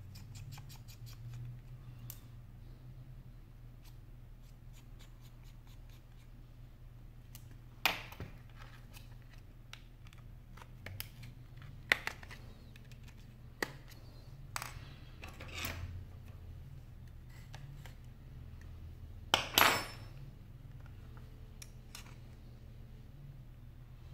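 Small hand-repair sounds as an iPhone 5 is taken apart. It opens with a quick run of fine ticks from a small screwdriver at the bottom screws. Then come scattered sharp clicks and scrapes as the front panel is prised up from the case, the loudest a short rasping clatter near the end.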